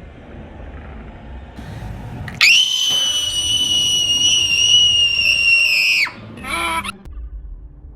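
Godzilla's roar: a long, shrill, high screech held for about three and a half seconds over a low rumble, bending down in pitch as it cuts off. A short second cry, falling in pitch, follows just after.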